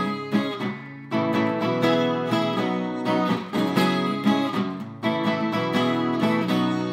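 Outro background music played on acoustic guitar: plucked and strummed notes, with a new phrase coming in about a second in and again about five seconds in.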